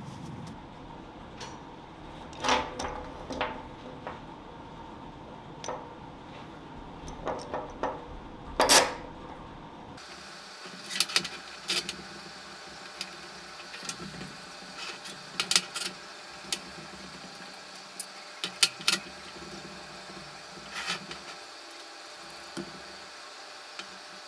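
Metal tools and workpieces handled on a workbench: irregular clinks and knocks, one sharper knock standing out about a third of the way in.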